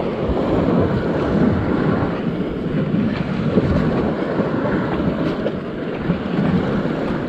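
Wind buffeting the microphone over the wash of sea waves on the rocks below, with a few faint clicks in the middle.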